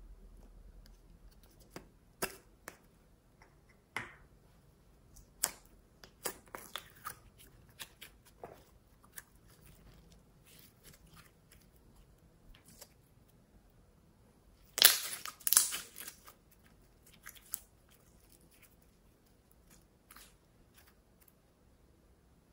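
Glitter slime being handled and stretched by hand: scattered short sticky clicks and crackles, with a louder cluster of sharp pops and crackles about fifteen seconds in.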